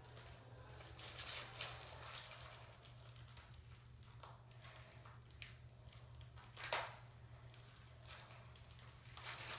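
Faint crinkling and rustling of a small plastic bag being handled, with a few short clicks, the sharpest about two-thirds of the way in.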